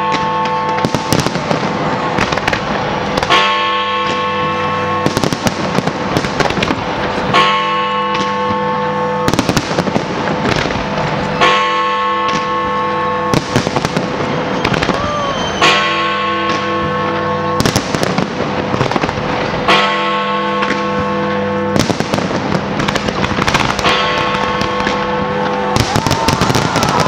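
Big Ben's hour bell striking midnight: a deep bong about every four seconds, six strokes, each ringing on for a couple of seconds. Dense bangs and crackles of a large firework display run beneath, the bangs the loudest sounds.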